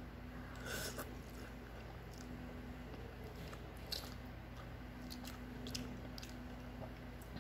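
A person eating instant ramyun noodles: a short slurp about a second in, then quiet chewing with a few small clicks.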